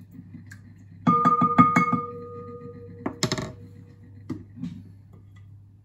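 A spoon stirring batter in a glass mixing bowl, striking the bowl about six times in quick succession so that the glass rings on. A sharper clink of metal on glass follows about halfway through.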